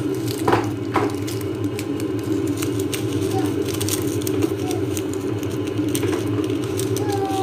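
Milkfish and vegetable soup boiling hard in a stovetop pot, bubbling and crackling continuously over a steady low hum.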